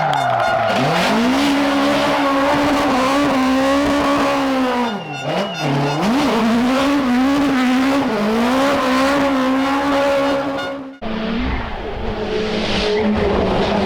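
Rally car engine at full throttle, its pitch sweeping down and climbing again on gear changes and lift-offs. About eleven seconds in the sound breaks off abruptly, and another engine is then held at fairly steady revs.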